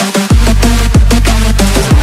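Background electronic dance music with a driving beat and deep bass hits that slide down in pitch. The bass drops out for a moment right at the start.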